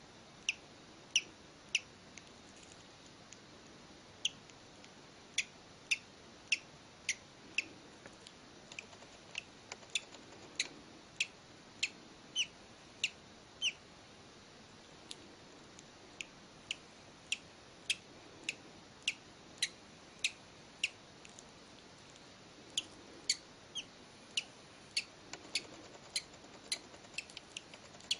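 A newly hatched bird chick cheeping: short, high, thin peeps repeated about once or twice a second, with a pause of a few seconds midway.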